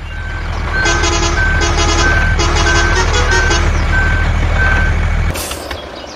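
Truck engine running with a reversing alarm beeping steadily, about three beeps every two seconds, over a short melody. The engine hum cuts off suddenly about five seconds in.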